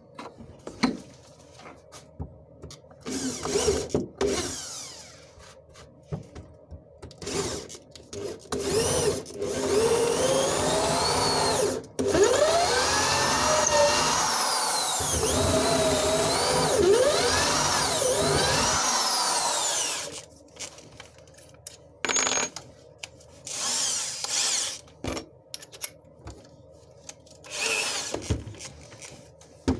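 Electric drill boring a hole through a thick wooden plank, its motor pitch rising and falling as the bit bites and is eased off. There are a few short runs, then one long run of about ten seconds in the middle, then more short bursts.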